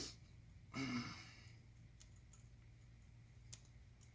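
A short strained grunt about a second in, then a few faint, scattered clicks of a socket wrench as a bolt is cinched tight, over a low steady hum.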